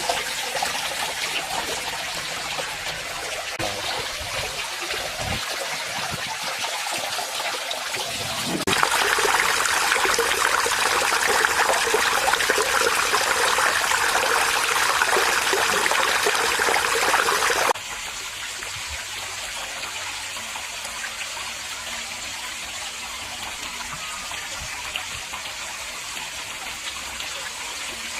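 Water from a small built waterfall splashing and trickling steadily into a pond. It turns louder and brighter from about nine seconds in, then drops back abruptly near eighteen seconds.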